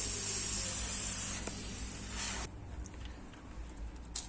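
Hot-air rework station blowing a steady hiss while heating the charging port on a phone's board, then switched off abruptly about two and a half seconds in. A sharp click near the end.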